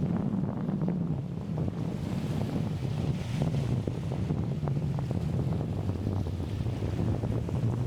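Strong wind buffeting the microphone in a steady low rumble with scattered crackles, over the wash of choppy sea waves.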